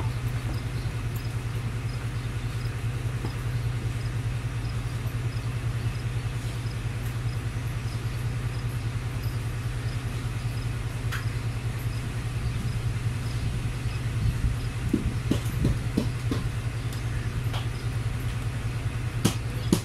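Diesel engine of a ZCU-20 diesel-electric locomotive running with a steady low drone under load as the train pulls away. From about fourteen seconds in, the wheels start clicking and knocking over rail joints, more often toward the end.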